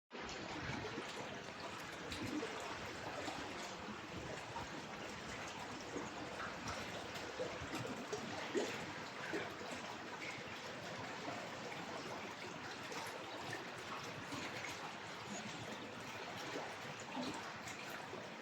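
Water trickling, a steady, even burble with small crackles throughout.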